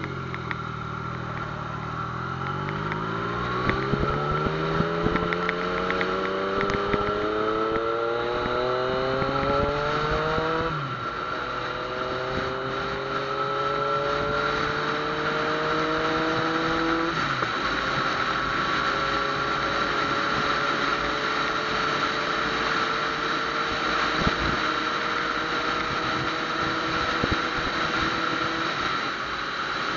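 Yamaha FZ-09's 847 cc inline-three engine pulling away from a stop. Its pitch rises steadily through first gear, drops at an upshift about eleven seconds in, climbs again and drops at a second upshift about seventeen seconds in, then holds steady at a cruise. A steady rush of wind runs underneath.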